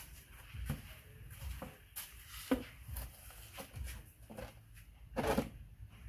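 Footsteps on a dirt path and scattered light knocks and scuffs from things being handled, with a louder clatter about two and a half seconds in and again just after five seconds.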